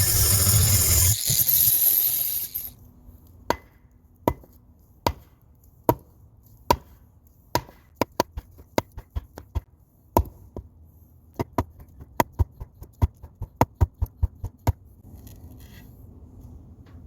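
A loud steady rushing noise that cuts off about two and a half seconds in, then a series of sharp knocks of something hard striking wood, about twenty of them, irregular and coming faster toward the end.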